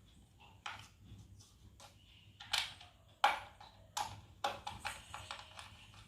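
Sharp knocks and clinks of hard parts being handled during work on a wet grinder: a run of separate strikes, about five louder ones spaced half a second to a second apart.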